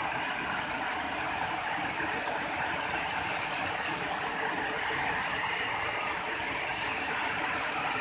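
A waterfall and stream rushing over rocks: a steady, unbroken water noise.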